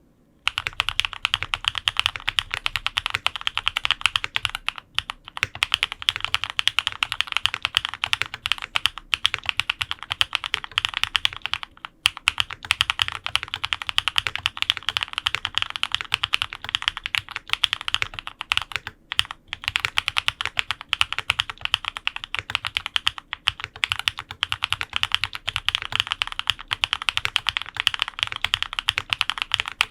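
Fast, continuous typing on a Mode65 custom mechanical keyboard (isolated top mount, POM plate) with lubed linear red switches (Cherry housings, Kailh red stems) and GMK keycaps. The typing starts about half a second in, with brief pauses twice along the way.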